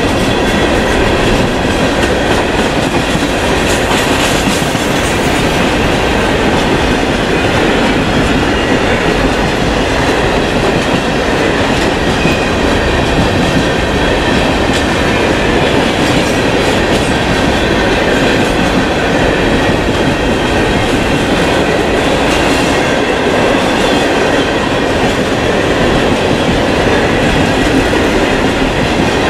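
Freight train of open-top hopper cars rolling past close by: a loud, steady rumble of steel wheels on the rails.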